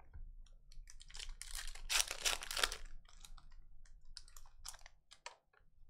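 Shiny foil wrapper of a trading card pack being torn open and crinkled by hand: a dense crackling run about one to three seconds in, then scattered crinkles.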